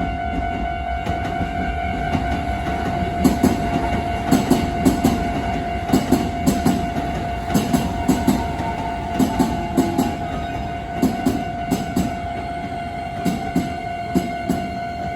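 Steel wheels of a Keisei electric train clacking over the rail joints in pairs as the cars pass, with a level-crossing bell ringing steadily throughout. The clacks begin a few seconds in and thin out toward the end as the train clears.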